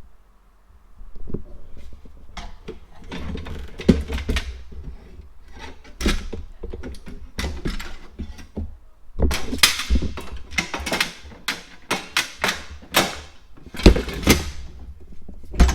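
Hardware being handled and fitted in an audio rack case: irregular knocks, clicks and thuds of parts being moved and set in place. The knocks come thicker in the second half, with the loudest thud about two seconds before the end.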